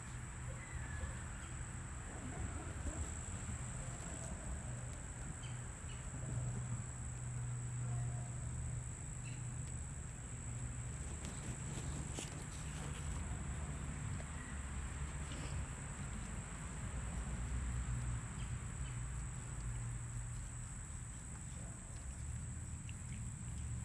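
A steady high-pitched insect chorus over a low hum, with the rustle and knocks of grass brushing against the phone as it moves.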